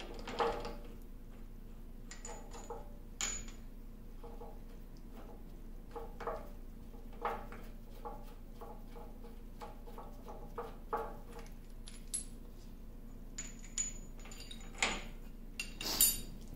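Steel gib strip being worked loose and slid off a lathe carriage: irregular light metallic taps and clinks, with the loudest clanks near the end.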